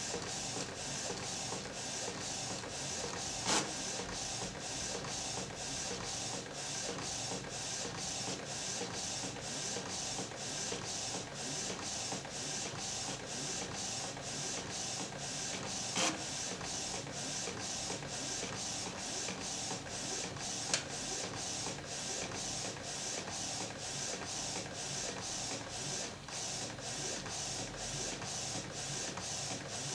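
Inkjet printer printing a page of photos: the print head carriage sweeping back and forth in a steady, even rhythm, with three sharp clicks along the way.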